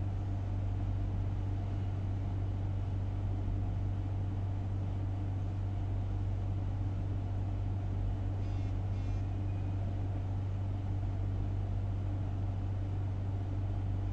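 Steady low electrical hum with faint room noise, unchanging throughout.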